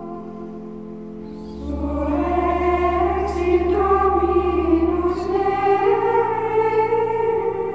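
Background music: choir-like singing in long held notes over a low drone, swelling louder about a second and a half in.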